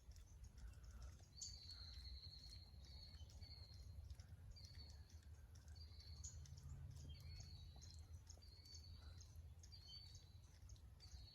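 Small songbirds twittering faintly: a short high call about once a second, with a longer one a little after the start, over a low steady rumble. The birds sound upset at a hawk that has just caught one of them.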